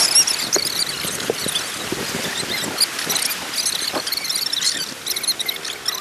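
River water rushing and splashing around an inflatable raft running a rapid: a steady hiss of white water with many small high-pitched chirps and ticks from the splashes.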